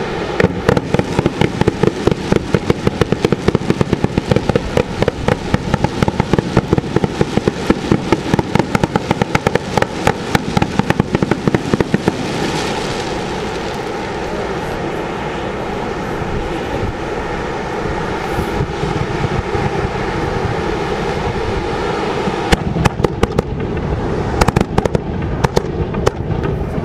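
Tube fireworks (tsutsu hanabi) spouting sparks: a steady rushing hiss with dense, rapid crackling through roughly the first twelve seconds. The crackle then eases into a steadier rush, and sharp bangs break in near the end.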